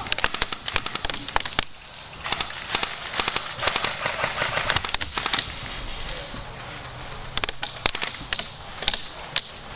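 Airsoft guns firing in rapid bursts of sharp pops: a long run in the first two seconds, another from about two to five and a half seconds, and shorter bursts later.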